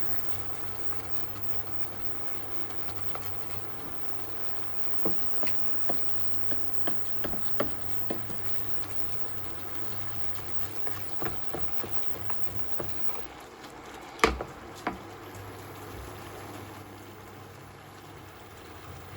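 Food simmering and bubbling in a pan with a steady hiss, with scattered light pops and clicks and one sharper click about 14 seconds in.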